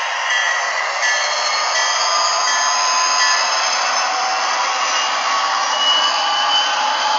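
MRC sound decoder in an HO-scale Athearn Genesis SD45-2 model locomotive playing its diesel prime-mover sound while the model runs along the track. The sound is thin and bass-less, as it comes from the model's tiny speaker. A pitch in it rises slightly near the end.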